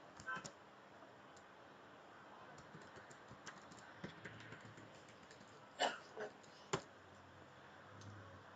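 Faint, irregular computer keyboard typing and clicks, with a few louder key strikes about six to seven seconds in.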